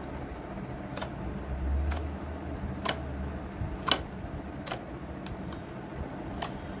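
Glitter slime being poked and squeezed by fingers, giving sharp clicking pops about once a second, less regular towards the end.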